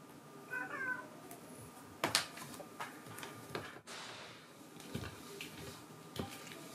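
A domestic cat gives a short meow about half a second in. A sharp knock follows about two seconds in, then several lighter clicks.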